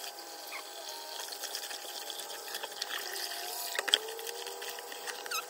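Water in a kitchen sink as raw chicken is rinsed, a steady watery hiss with a few small squeaks, and a sharp knock about four seconds in.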